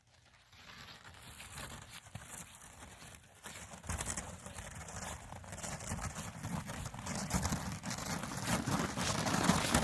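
Footsteps crunching in crusted snow, a dense crackling that grows steadily louder.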